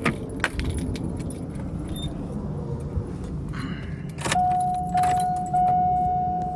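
Keys jangling and clicking as a truck's ignition key is worked. About four seconds in a dashboard warning chime starts, a steady electronic tone that sounds and fades away about once a second.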